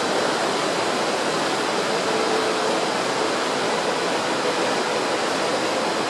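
Steady rushing noise of air and water heard out on a cruise ship under way, even and unbroken. Faint humming tones come and go from about two seconds in.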